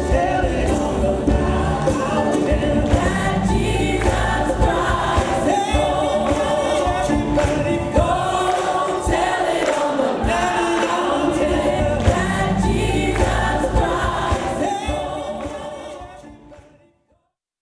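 A choir singing gospel-style Christmas music over instrumental backing with a strong bass, fading out near the end.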